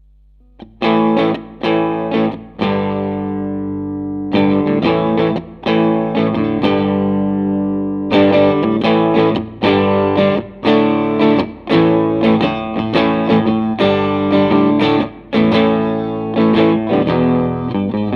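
Electric guitar, a Fender Stratocaster, played through a Line 6 Helix amp-and-cab model. It comes in about half a second in with a few chord strokes, lets one chord ring for over a second, then plays a run of rhythmic chord stabs.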